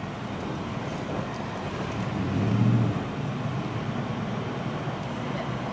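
Engine and road noise heard from inside a Jeep's cabin as it pulls onto the road and gathers speed. A louder low rumble swells and fades about two and a half seconds in.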